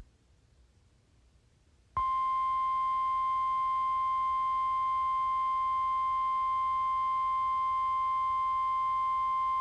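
NOAA Weather Radio warning alarm tone: a single steady, loud tone of about 1050 Hz that comes in after about two seconds of near silence. It is the attention signal that precedes a new weather warning broadcast.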